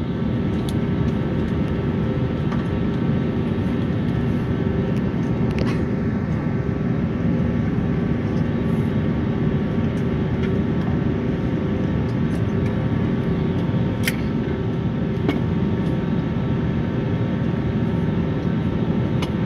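Airliner cabin noise from a window seat: the jet engines running steadily as the plane taxis, a constant hum with a few faint steady tones above it.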